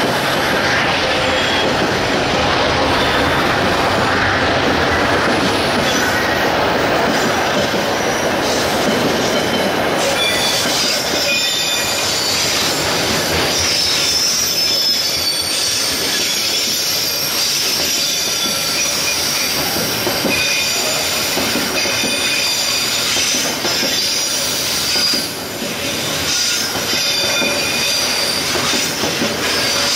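A long, heavy freight train's wagons rolling past, the wheels squealing on the rails and clicking over the rail joints. The low rumble eases after about ten seconds, and the high wheel squeal is more prominent from then on.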